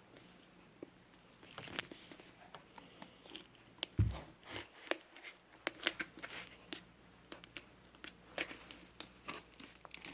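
Fluffy slime being handled and pulled, giving small sticky crackles and clicks, with a soft thump about four seconds in.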